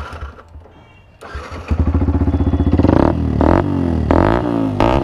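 Yamaha R15S single-cylinder motorcycle engine starting about a second and a half in, then revved in repeated quick blips that rise and fall in pitch, through a modified 'fire shot' exhaust.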